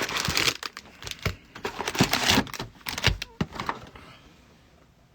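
Plastic wrapping on trading card packaging crinkling and tearing as it is opened by hand, with many irregular crackles that stop about four seconds in.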